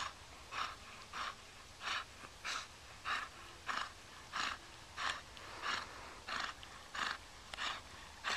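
Rhythmic panting breaths, evenly spaced at about one puff every two-thirds of a second.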